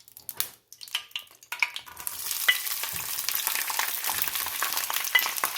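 Omena (small dried sardines) sizzling as they fry in a pan, with scattered clicks of stirring. The sizzle comes up about two seconds in, after a quieter start with a few clicks.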